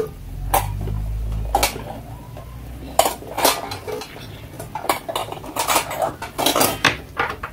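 Metal pots and utensils clattering and clinking as washed dishes, including a stainless steel pot, are stacked into a plastic dish rack. There are many separate knocks, busiest in the second half, with a low rumble in the first second or two.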